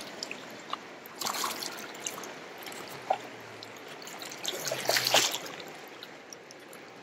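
Shallow river water trickling over rocks, with two brief splashes, one about a second in and one around five seconds in.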